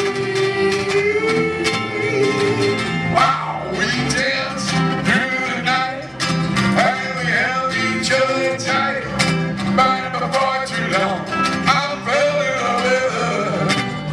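Live band music with guitar and a melodic lead line over a steady beat.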